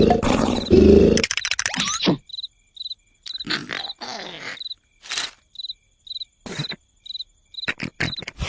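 Cartoon sound effects: a loud snore for about the first second, then a cricket chirping about twice a second, broken by short comic sound effects.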